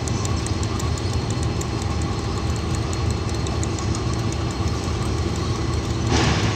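KiwiRail DX-class diesel-electric locomotives idling with a steady low hum as one turns slowly on the turntable. A short hiss sounds about six seconds in.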